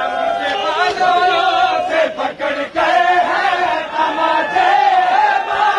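A crowd of mourners chanting together in drawn-out voices, dipping briefly about two seconds in.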